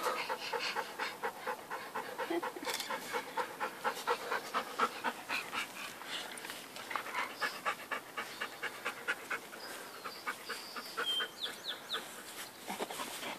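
Quick, even panting close by from a golden retriever holding a tennis ball in its mouth.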